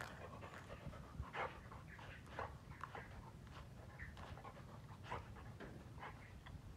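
Dog panting softly in short, irregular breaths.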